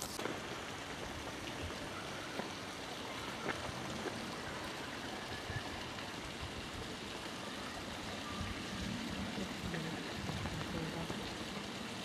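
Steady rush of flowing water, an even hiss at a constant level.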